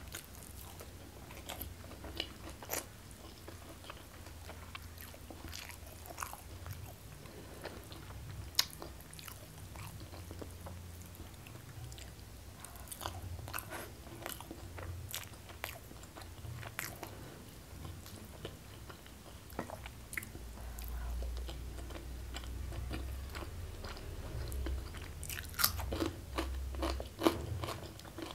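Close-miked chewing and mouth sounds of a person eating rice and greens with her fingers: sharp, scattered mouth clicks over a faint low hum, thickening into a louder run of clicks near the end.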